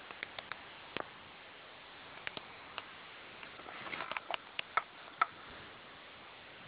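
Scattered light clicks and ticks of small hard objects being handled, with a quick cluster of them about four to five seconds in, over a steady hiss.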